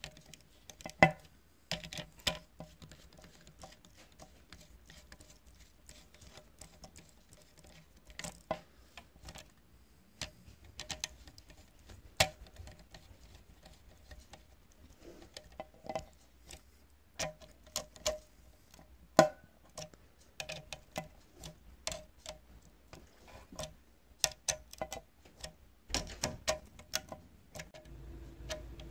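Small screwdriver tightening the screws of a laptop CPU heatsink: scattered light clicks and ticks of metal on metal, with a few sharper clicks.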